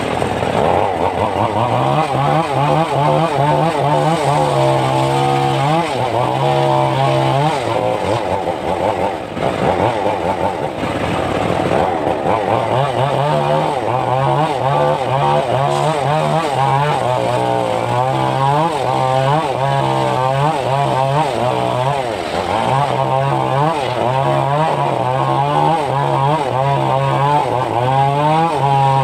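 Engine of a homemade circular sawmill running with the blade spinning free, not cutting; its note steps up and down about once a second.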